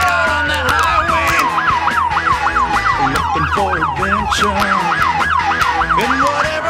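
Patrol car electronic siren: a falling wail at the start, then a fast yelp of about three sweeps a second that stops near the end.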